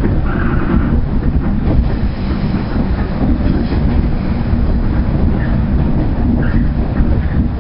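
JR Central 119 series electric train running along the line, heard from inside the driver's cab: a steady rumble of wheels and running gear with the clatter of the wheels over the rails.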